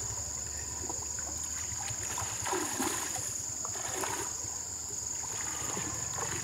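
Water sloshing and swishing as people wade through a shallow muddy pond, dragging a seine net through the water, over a steady high-pitched hum.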